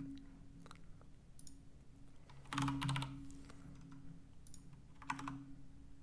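Computer keyboard and mouse clicks while working a spreadsheet: a short cluster of clicks near the middle and a briefer one near the end, over a faint steady hum.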